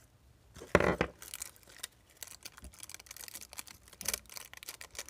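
Sticky, gooey yellow plastic wrapping crackling and crinkling as it is handled and pulled apart by hand, with a louder rustle about a second in.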